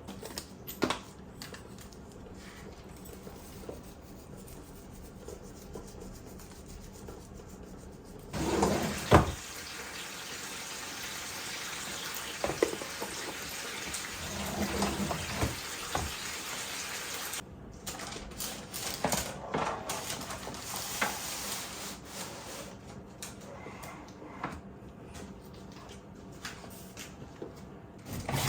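Water running from a tap for about nine seconds, starting about eight seconds in and cutting off suddenly, with scattered knocks and clatters of things being handled at a sink.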